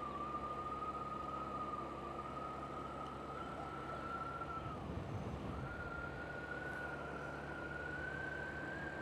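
Yamaha Vino scooter running while being ridden: a steady high whine over a low rumble, which drops away briefly about five seconds in and comes back slightly higher.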